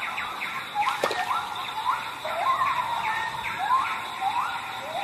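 A bird calling over and over: whistled notes that each rise in pitch, about one and a half a second, some held briefly at the top. A steady high whine runs underneath, and there is a sharp click about a second in.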